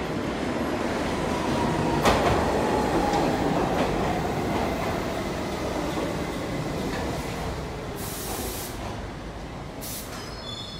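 R68 subway train pulling into the station and braking, its wheels rumbling on the rails, with a sharp clack about two seconds in and a motor whine falling in pitch as it slows. Two short hisses near the end.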